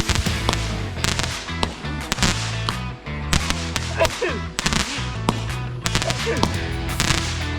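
Background music with a steady bass line, with fireworks going off over it: repeated sharp bangs and crackling.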